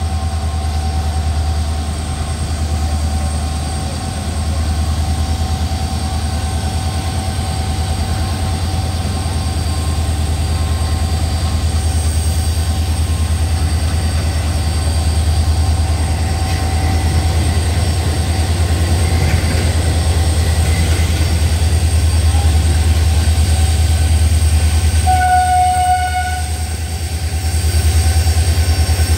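ALCO WDG3A diesel locomotive chugging slowly as it hauls a goods train past, a steady low throb, with the freight wagons rolling by behind it. A short train-horn note sounds about 25 seconds in.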